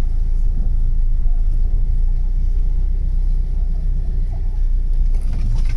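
Steady low rumble inside a car cabin as the car drives slowly through shallow floodwater.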